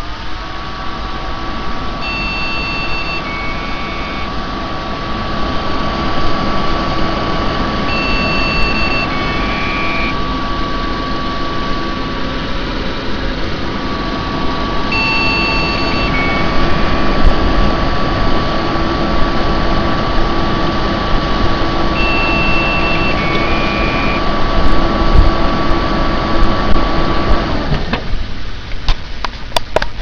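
Desktop PC running with its case open: the cooling fans make a loud, steady whir while the Phoenix BIOS POST speaker repeats a beep code, a higher tone followed by a shorter lower one, four times about every six to seven seconds, signalling dead RAM. The machine is switched off near the end and all the sound stops.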